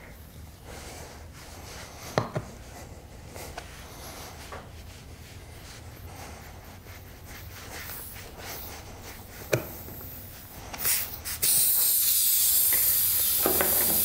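A few faint clicks of needle-nose pliers working a nail in a car tyre's tread, then, near the end, a sudden steady hiss of air escaping from the puncture as the nail comes out.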